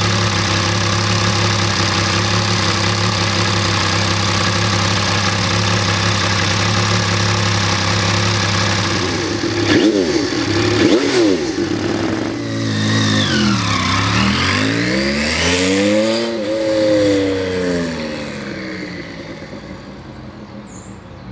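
Horex VR6 motorcycle's 1200 cc VR6 engine idling steadily, then blipped twice with sharp revs about ten seconds in. The bike then pulls away, the engine note rising and falling in pitch and fading as it rides off.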